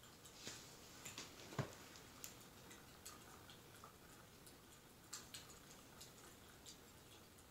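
Faint crackling of a wood fire played as a fireplace background track: scattered, irregular pops and snaps over a soft hiss, with one sharper pop about one and a half seconds in.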